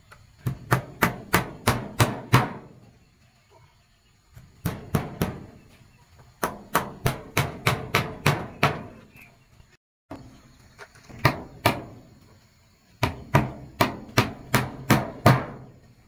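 Repeated blows of a hand tool striking, in several quick runs of about four strikes a second with short pauses between runs.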